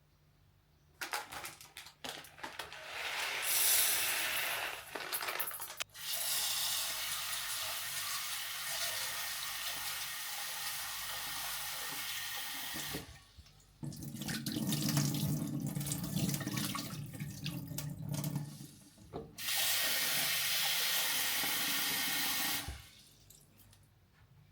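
Water running from a tap into a sink, turned on and off with a few short breaks. For about five seconds in the middle the stream sounds fuller and lower, as if it is landing on something. The water shuts off near the end.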